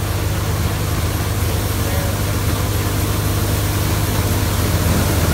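NJT multicrop thresher running under load as dried crop stalks are fed in: a loud, steady low hum with a dense rushing noise of threshing over it, swelling slightly near the end.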